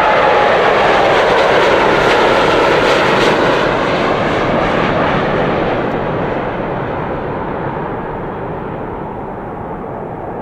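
Boeing 787 Dreamliner's twin turbofan engines at takeoff thrust as the airliner lifts off and climbs away: a loud jet rush with a falling whine at the very start, fading steadily over the second half as the plane recedes.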